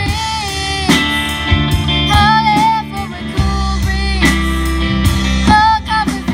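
Live rock band playing through amps and a small PA: a girl sings lead, holding wavering notes, over drum kit, electric bass and electric guitar.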